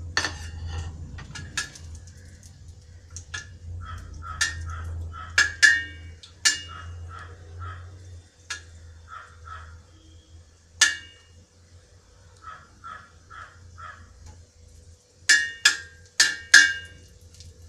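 A steel ladle clinking and scraping against a brass uruli as cashews are stirred while frying in ghee, each strike ringing briefly, with a cluster of clinks near the end. Between the strikes a bird calls in short, evenly spaced notes, over a steady low hum.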